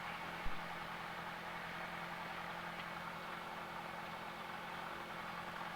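Cessna 172's piston engine running steadily at low power, idling at the runway holding point, heard faintly as in-cockpit recording, with one small click about half a second in.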